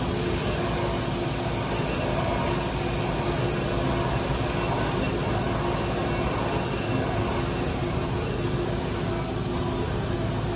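Portable boring bar running steadily as it bores a cylinder of a Volvo Penta 8.1 V8's cast-iron block .030 in. oversize: an even machine drone with a few steady hums.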